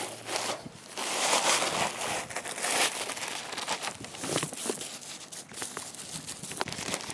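Rough all-purpose gravel pouring out of a plastic bag onto landscape fabric, a rattling rush of small stones mixed with the crinkle of the bag being handled, starting about a second in.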